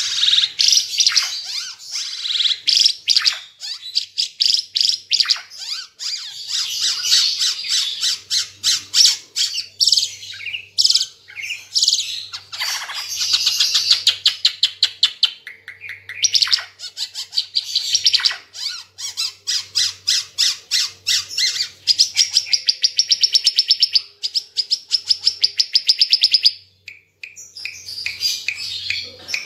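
Ara Timor songbird singing loudly, a nonstop chatter of rapid repeated high notes, with a long fast even trill near the end broken by a brief pause.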